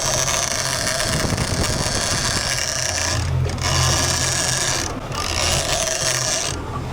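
Fishing reel clicking steadily, over the low steady hum of the boat's engine.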